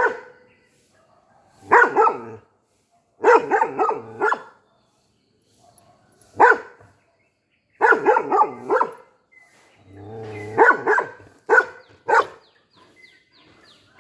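Golden retriever barking in short bouts of one to four deep barks, with pauses of a second or two between bouts.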